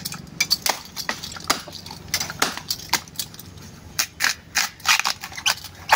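A knife hacking at the base of a bamboo shoot to cut it from the clump: a string of sharp, irregular chops, coming in quicker runs about two seconds in and again from about four seconds.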